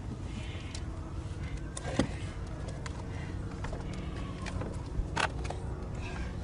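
Wood and debris being shifted by hand in tornado rubble, with a few sharp knocks, the loudest about two seconds in and two more near five seconds, over a steady low rumble.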